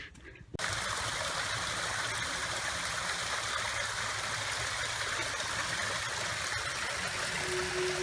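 Hillside stream running full after rain: a steady rush of flowing water that starts suddenly about half a second in.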